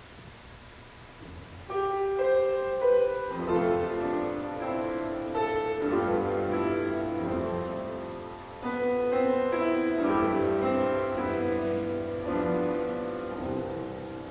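Grand piano playing the introduction to a hymn, starting about two seconds in after a moment of quiet, with a brief drop midway before the next phrase.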